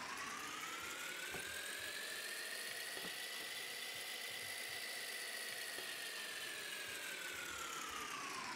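Electronic whirring drone sound effect over a hiss. Its pitch glides slowly upward over the first few seconds, holds steady through the middle, and glides back down near the end.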